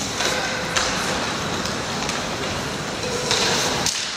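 Ice hockey play in a rink: a steady hiss of skates carving the ice, with sharper, brighter scrapes about a second in and again near the end.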